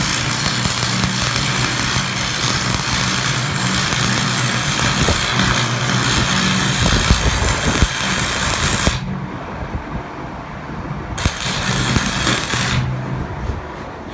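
Electric arc welding on the steel tank: the arc crackles and hisses steadily for about nine seconds, stops, then a second short weld runs for about a second and a half near the end. A steady engine hum runs underneath throughout.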